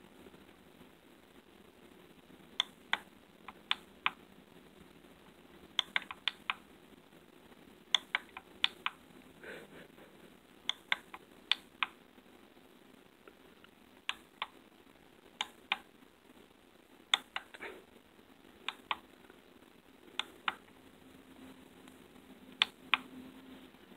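Plastic buttons on a remote control clicking, mostly in pairs of sharp clicks a fraction of a second apart, repeated every second or two as the buttons are pressed over and over.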